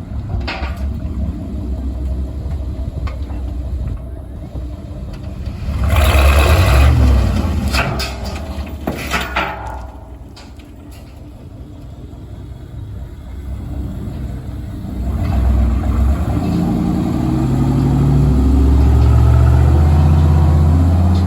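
Engine of a heavy work vehicle running. About six seconds in there is a loud, noisy rush, and over the last few seconds the engine revs up and holds at high revs.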